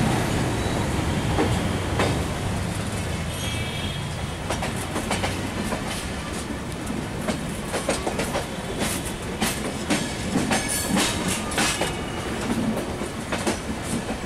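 Passenger train coaches rolling slowly over rail joints and points: a steady low rumble with irregular sharp wheel clicks and clacks, which come thicker and louder after the first few seconds.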